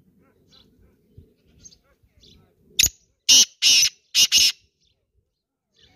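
Male black francolin calling: five loud, harsh, rasping notes within about two seconds, a short first note and the third the longest.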